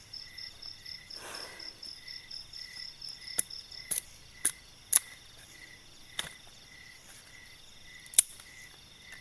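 Dry bamboo sticks snapped by hand, about six sharp cracks from the middle on, the loudest near the end. Crickets chirp steadily in the background.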